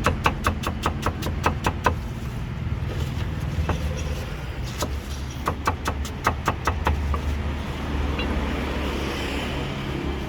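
Knife or cleaver chopping fast on a cutting board, about six strokes a second for the first two seconds, then another run of chops a few seconds later, over a steady hum of street traffic.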